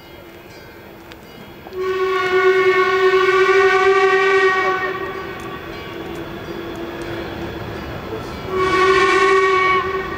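Steam whistle of the ČSD 464.202 steam locomotive, blown twice as it approaches: a long blast of about three seconds, then a shorter one of just over a second.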